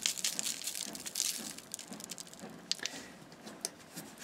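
Barbecue rub being shaken from a plastic shaker bottle: a dry, irregular rattle of granules in quick clicks, thickest about a second in.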